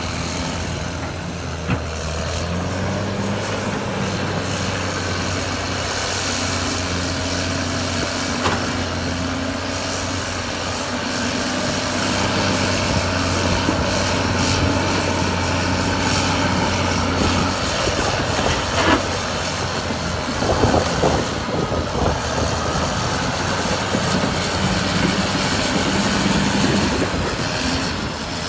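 Caterpillar D6R2 bulldozer's diesel engine running steadily under load. A cluster of sharp knocks comes about twenty seconds in.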